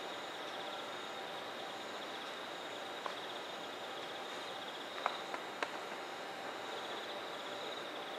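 Insects chirping in a steady, high, pulsing trill over a constant background hum, with a few faint clicks about five seconds in.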